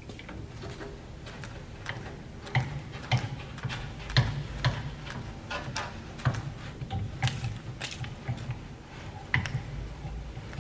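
Harrison M300 engine lathe's carriage being cranked along the bed by its apron handwheel: irregular metallic clicks and clunks from the handwheel and rack-and-pinion, over a steady low hum.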